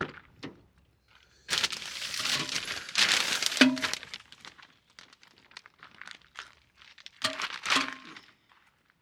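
Crinkling and rustling, as of material being handled, in two bouts: a long one from about a second and a half in and a shorter one near the end, with scattered small crackles between.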